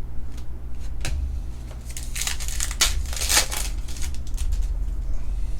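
Foil wrapper of a trading-card pack being torn open and crinkled, with a few sharp clicks and then a run of crackly rustling in the middle.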